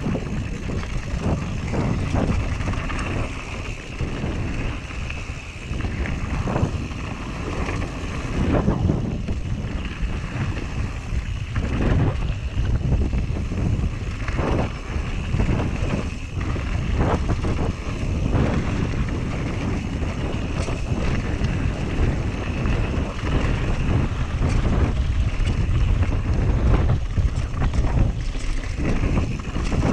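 Whyte G-170S mountain bike riding down a dirt singletrack: a steady rush of wind on the action camera's microphone, with the tyres rolling over dirt and stones and the bike knocking and rattling irregularly over bumps.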